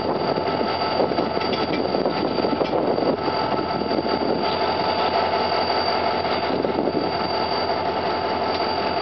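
Pakistan Railways diesel-electric locomotive 8218 running at idle while standing, a steady engine rumble with high, unchanging whines over it.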